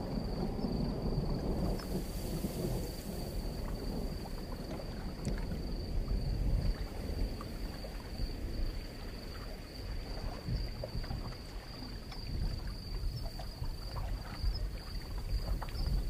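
Deep, uneven low rumble with faint scattered clicks, and a thin, steady high-pitched tone above it.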